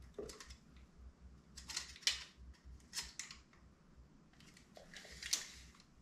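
Short clicks and scrapes in about four clusters, from a tape measure and windshield mounting brackets being handled on a motorcycle's front fork tubes.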